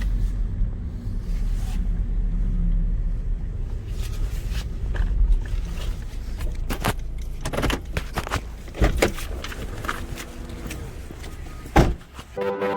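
Steady low rumble of a car with a scatter of clicks and knocks, and one loud sharp thump near the end.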